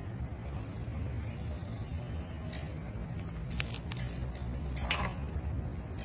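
Severe macaw cracking and crunching peanut shells in its beak: scattered sharp cracks, mostly in the second half, with a longer crunch near the end, over a steady low rumble.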